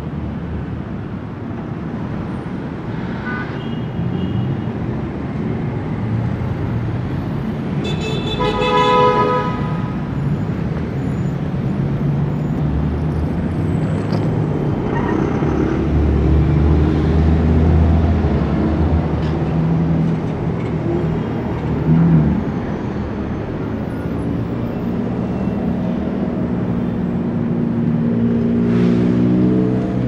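Heavy city street traffic: car engines running and passing in a steady drone, with a car horn sounding for about a second and a half about eight seconds in and shorter horn toots near three and fifteen seconds. Near the end an engine revs up.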